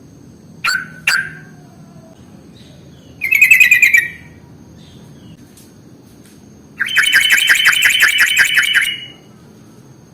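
Yellow-vented bulbul (trucukan) calling: two short downward-slurred notes early, a brief loud bubbly burst about three seconds in, then a long rapid chattering run of about seven notes a second lasting some two seconds.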